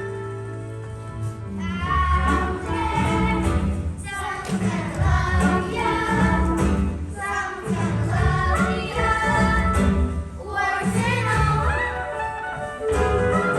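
A group of children singing a musical-theatre song over instrumental accompaniment with a steady bass.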